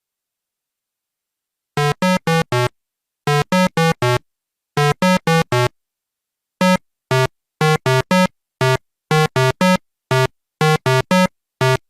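Short electronic synthesizer notes, played staccato in quick runs of three or four with single notes between, starting about two seconds in.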